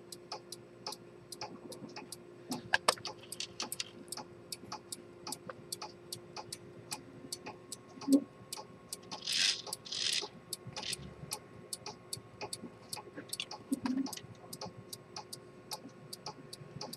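Antique pocket chronometer with a detent escapement ticking steadily, about two or three light ticks a second. A few knocks and a brief rub come from the gold case being handled, the loudest about halfway through.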